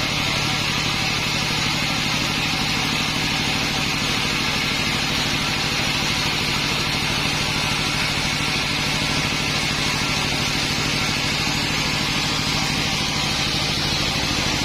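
Sawmill's engine running steadily at an even speed, with a constant high hiss over it.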